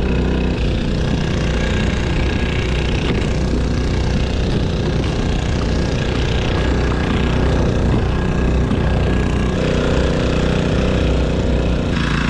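Cheap 4 HP four-stroke outboard motor running steadily on a kayak, an even mid-pitched engine drone with water splashing. It is held at its top speed yet hardly moves the boat; the owner suspects grass got into it.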